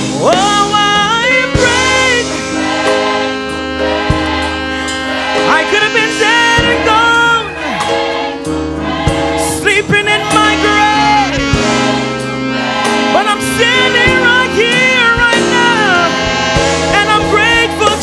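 Gospel worship music: voices singing long held notes that slide and waver, over steady sustained instrumental backing.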